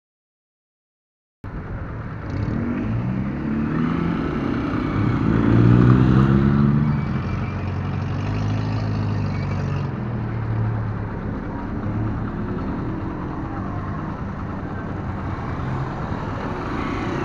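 Near silence for about a second and a half, then a motorcycle riding in traffic: its engine note rises and falls as it speeds up and slows, over a steady rush of wind and road noise, loudest about six seconds in.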